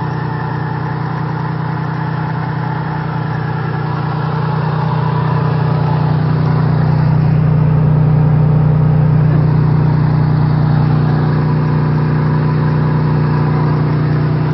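Off-road 4x4's engine running close by with a steady pitch, growing louder about five seconds in and easing off slightly toward the end.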